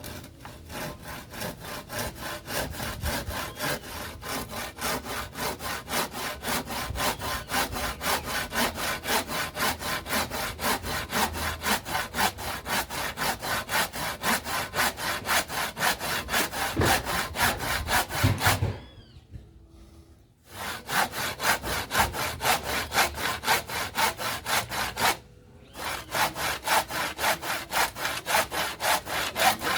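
Hand saw cutting through wood in quick, steady back-and-forth strokes, stopping for about two seconds roughly two-thirds of the way through and briefly again near the end.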